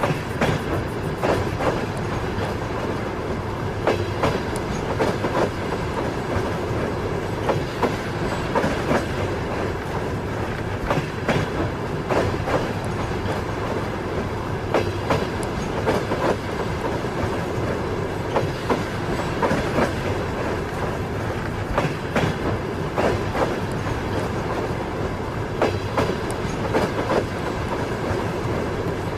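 Train wheels clattering over rail joints: a steady rumble of a moving train with clickety-clack strikes every second or so, often in close pairs.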